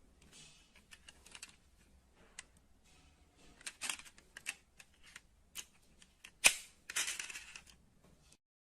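Small die-cast metal model cars being handled: scattered clicks, taps and short scrapes, with one sharp click about six and a half seconds in followed by a brief rattle. The sound cuts off abruptly near the end.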